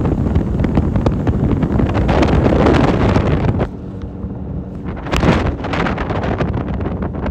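Wind buffeting a phone microphone on a fishing boat running at speed across a lake. About halfway through the rush drops abruptly, and a steady boat motor hum shows under the wind, with one more loud gust soon after.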